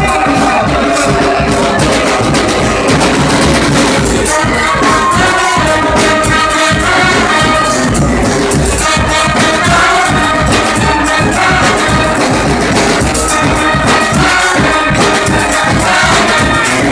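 Live brass band playing a loud tune, horns over a steady beat of drums and shaken percussion.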